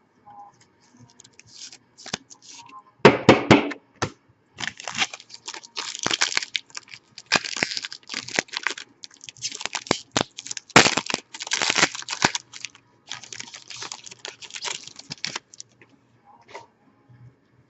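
Plastic trading-card packaging crinkling and tearing in irregular crackly bursts as a pack is handled and opened, loudest about three seconds in and again near the middle.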